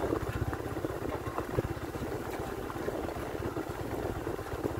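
Motorcycle engine running at low speed while riding, a steady low pulsing, with a few short knocks about a second in.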